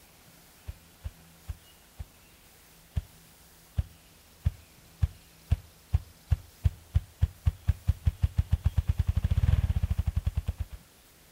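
Male ruffed grouse drumming with its wings: low thumps, slow and widely spaced at first, coming faster and faster into a rapid whirr that swells and then stops suddenly near the end. This is the spring courtship display a male gives to attract a mate.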